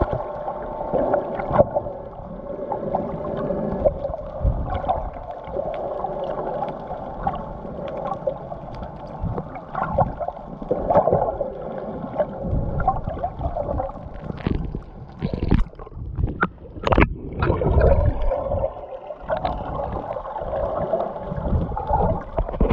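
Muffled underwater sound of snorkelling: water movement and bubbles over a steady hum. A cluster of sharper splashing and bubbling comes about two-thirds of the way through.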